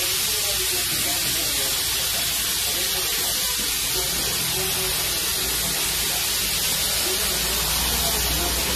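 A steady, even hiss with faint voices murmuring underneath.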